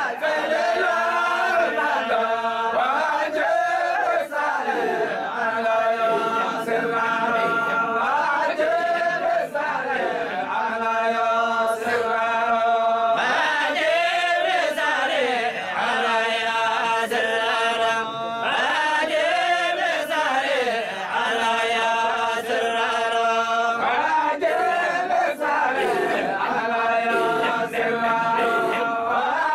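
Men's voices chanting a Sufi dhikr together, in long held notes with rising and falling turns between phrases.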